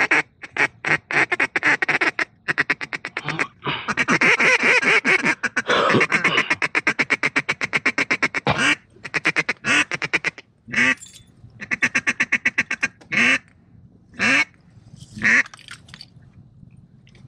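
Mallard-style duck call blown close by, calling to a duck flying out front. It starts with rapid clucking at about ten notes a second, then a dense run of quacks, then single quacks about once a second that fade out near the end.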